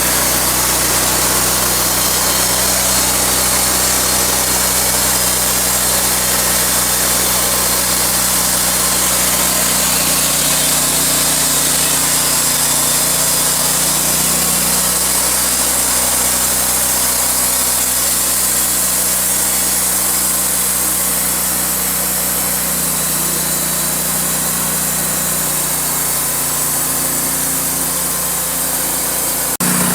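Sawmill's engine running steadily under load while the saw cuts through a log, the engine note sagging and recovering slightly a few times, with a steady hiss of cutting over it. The sound drops out briefly just before the end.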